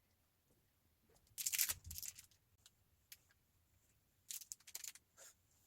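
Two short bursts of rustling and crinkling, like a material being handled or crumpled, about a second and a half in and again about four seconds in, with a few faint ticks between.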